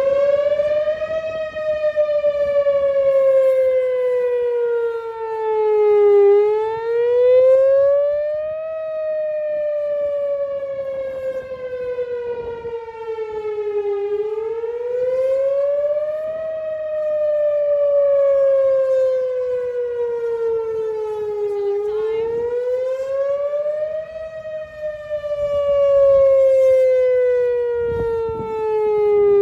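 Outdoor tornado warning siren wailing. Its tone climbs over about two seconds, then sinks more slowly over about five, and repeats about every seven and a half seconds. The loudness swells and fades now and then.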